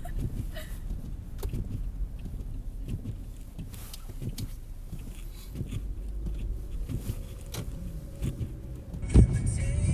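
Car on the move: a steady low engine and road rumble with scattered light clicks and knocks. About nine seconds in, the sound changes abruptly to louder thumps.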